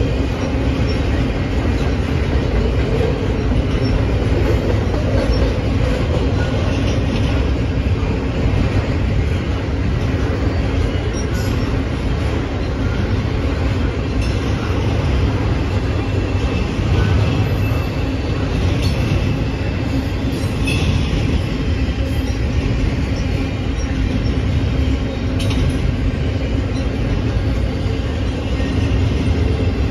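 Double-stack intermodal freight train rolling past, a steady rumble of steel wheels on the rails, with a few brief high squeals from the wheels.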